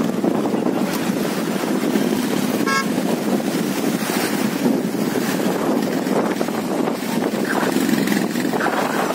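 Motorcycle engines running over the steady rush of a fast mountain stream as loaded bikes ride through the water crossing, with one short, high horn toot about three seconds in.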